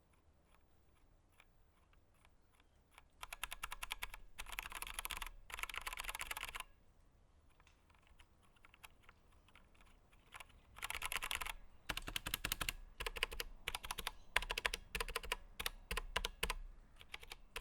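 Typing on a Velocifire VM01 mechanical keyboard with Zorro Brown tactile switches, clones of Cherry MX Browns with no audible click. A fast run of keystrokes starts about three seconds in, stops for about four seconds, then the typing resumes in uneven runs until near the end.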